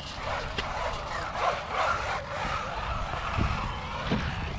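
Arrma Typhon Grom RC buggy driving on concrete: its electric motor and tyres make a wavering whine that rises and falls, with a few light knocks.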